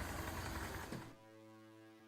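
A car engine idling, cut off abruptly about a second in. Soft music of sustained, steady synth-like tones follows.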